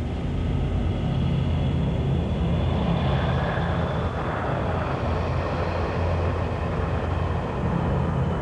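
Sci-fi spaceship engine sound effect: a deep, steady rumbling drone with a hiss over it as a huge starship passes by.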